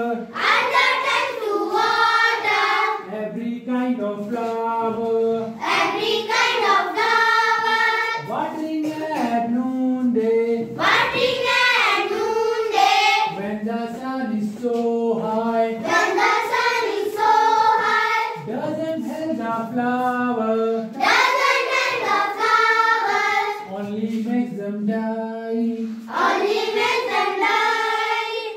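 A class of schoolchildren singing a watering rhyme together in unison, unaccompanied, in short phrases that repeat every few seconds.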